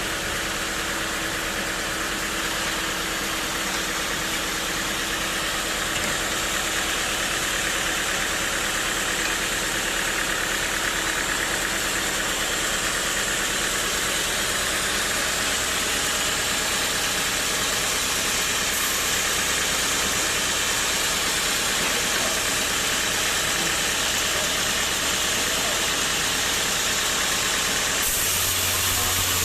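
Sawmill machinery running steadily with a broad mechanical hiss; near the end a low hum comes in.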